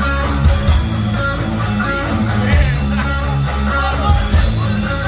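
Heavy metal band playing live: electric guitar over bass guitar and drums.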